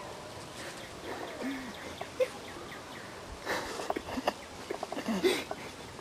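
Faint outdoor background noise with scattered distant voices and a few clicks and rustles, loudest about three and a half to five and a half seconds in.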